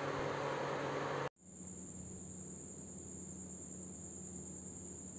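Induction cooktop's cooling fan running with a low hum for about a second, cutting off abruptly. Then a quieter steady hiss with a continuous high-pitched whine.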